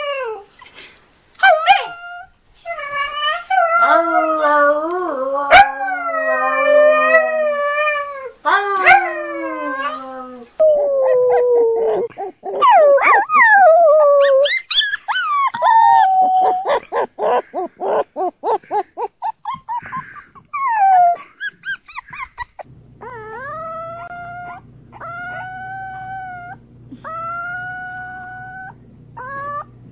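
Puppies howling in a run of short clips: a husky puppy gives long, wavering howls over the first ten seconds, pulsing whimpering cries follow, and near the end a bulldog puppy howls in short calls that rise and then hold, over a steady low hum.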